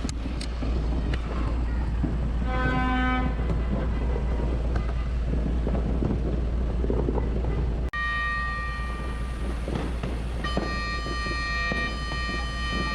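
Wolo 846 fire-truck air horn blowing a long, bright, high blast from about eight seconds in; its mix of tones shifts about ten and a half seconds in. A short, lower toot sounds about two and a half seconds in. A steady low rumble runs underneath.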